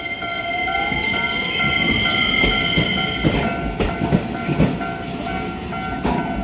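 Japanese level-crossing warning bell ringing its steady repeating two-tone chime while an electric train comes through. The train gives a whine that rises in pitch, then wheels clatter over the rail joints from about three seconds in.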